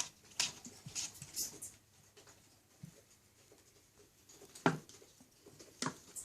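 Small pets clambering on a kitty condo: irregular scratching and scrabbling, with a few sharper knocks near the end.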